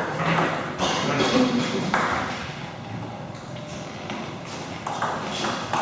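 Table tennis ball clicking off rackets and the table during play, sharp ticks at irregular intervals, with voices in the hall.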